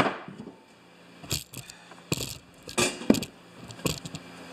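About five separate metal clinks and knocks as a snowblower auger's worm-gear housing and steel shaft are handled and set down on wooden blocks on a workbench.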